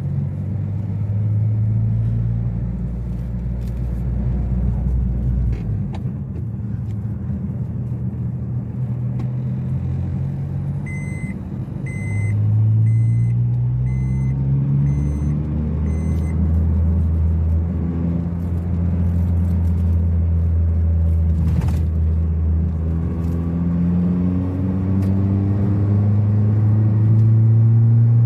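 Honda Brio's four-cylinder engine through an aftermarket racing exhaust, heard from inside the cabin while driving: a loud, low drone that rises steadily in pitch twice as the car accelerates. Partway through, a run of about six short electronic beeps sounds over it.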